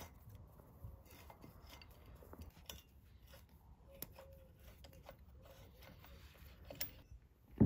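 Light, irregular metallic clicks and scrapes of a socket tool and steel bolts at an engine flywheel as the flywheel bolts are undone and turned out by hand. A louder knock comes right at the end.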